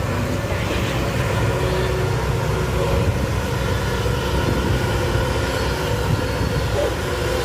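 Backhoe's engine running steadily, its sound mostly low-pitched and even.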